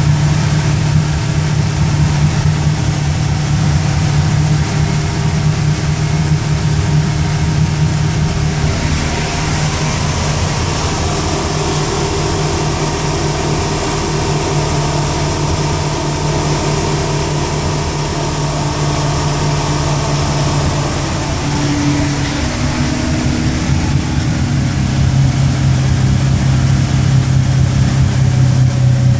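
Mercury MerCruiser 350 Mag marine V8 engine running steadily at a low speed, its note shifting slightly about three quarters of the way through. The owner presents it as a bad-sounding engine.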